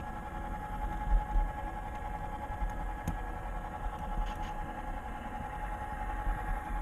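Simulated EMD F7 diesel locomotive engine running steadily, played by the HO model's Soundtraxx DCC sound decoder, with a sharp click about three seconds in.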